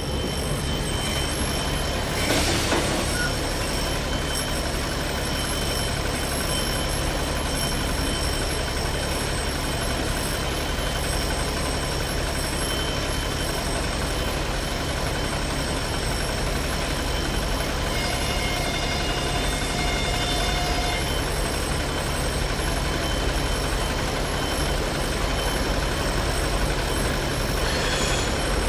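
Diesel locomotive (4TE10S) approaching a level crossing, its engine a steady low drone that grows a little louder near the end as it nears.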